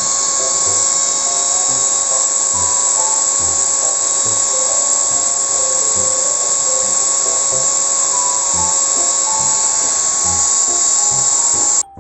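Electric hair dryer blowing steadily on the kittens' fur, a loud even hiss with a constant high motor whine. It cuts off abruptly near the end, with faint background music underneath.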